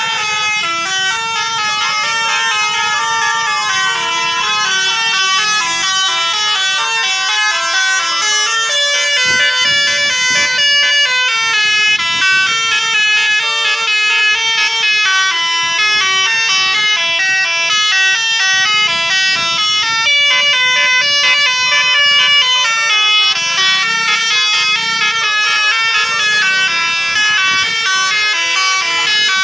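Multi-tone bus telolet horns playing quick tunes of stepping notes, several sounding over each other.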